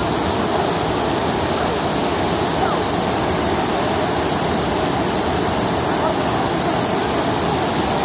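Steady rushing of the Tortum Waterfall and the white-water cascade below it, an even, unbroken water noise.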